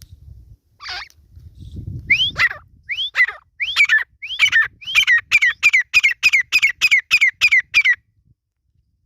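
Grey francolin (desi teetar) calling: a series of loud whistled notes, each rising then falling, that speed up from about two to about three a second before stopping about a second before the end.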